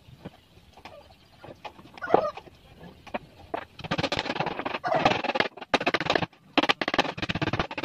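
Chickens clucking: scattered single clucks, then from about four seconds in a loud, fast run of clucks.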